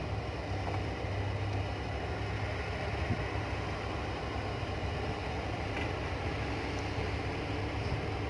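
Kobelco 850 excavator's diesel engine running steadily: a low, even hum.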